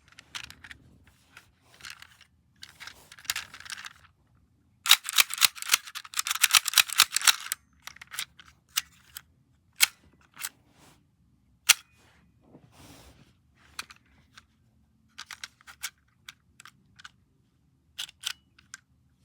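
Sharp mechanical clicks from a small hand-held object being fidgeted with. They come singly and in quick runs, with a dense rattle of clicks about five seconds in lasting a couple of seconds.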